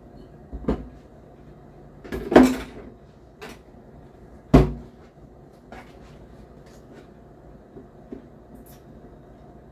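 Hard knocks and clunks of a glass mason-jar dispenser and plastic bottles being handled and set down on a kitchen countertop. The loudest come about two and a half and four and a half seconds in, with lighter taps scattered after.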